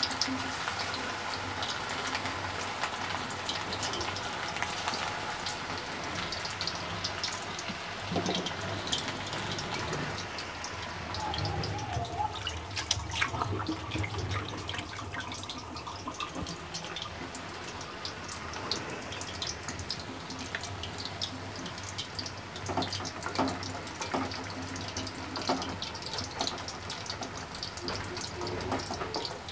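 Chicken pieces coated in flour and cornflour deep-frying in hot oil over low-to-medium heat: a steady bubbling sizzle with many small crackles and pops.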